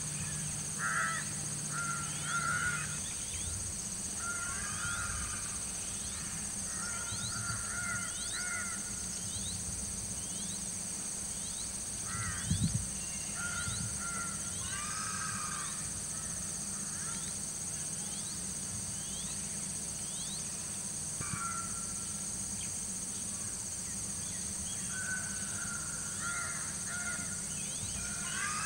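Crows cawing on and off, in short repeated calls, over a steady high-pitched hiss, with one sharp thump about halfway through.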